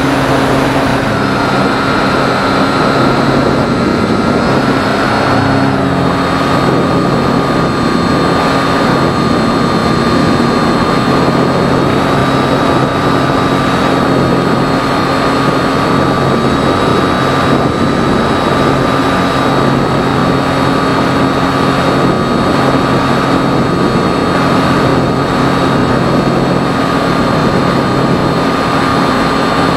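Electric motor and propeller of a Phoenix 2000 RC motor glider whining steadily in flight, heard from the model's onboard camera over loud rushing wind. The whine drops a little in pitch about six seconds in.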